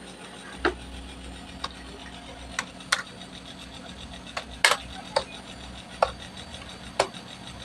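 Slow typing on a Dell computer keyboard: about ten separate key clicks, spaced irregularly, one every half second to a second.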